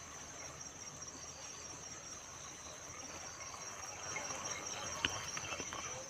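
Crickets chirring steadily in one high, even trill, with a single sharp click about five seconds in.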